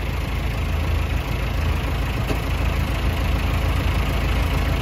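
Massey Ferguson 382 tractor's diesel engine running steadily with a low, even drone.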